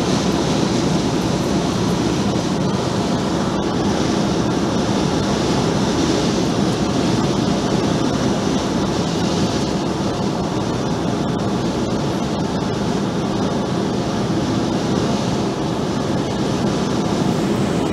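Steady road and tyre noise with wind rush, heard inside a car cruising at highway speed.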